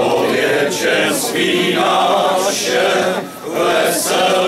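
Men's choir singing a Czech Christmas carol in held, chordal phrases, with a brief pause for breath about three seconds in.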